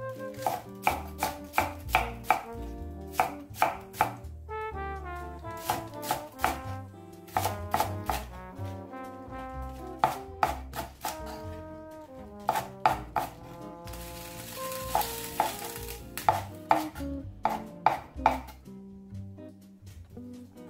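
Chef's knife chopping pak choy on a bamboo cutting board: quick strokes in short runs of several cuts each, with pauses between runs, over background music.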